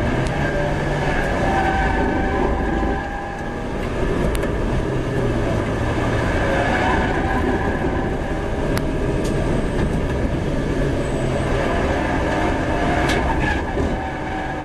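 Citroën C1 race car's 1.0-litre three-cylinder petrol engine running hard under load, with tyre and road rumble, heard from inside the cabin. The engine note rises and falls as the revs change, with a brief drop about three seconds in and a few sharp clicks.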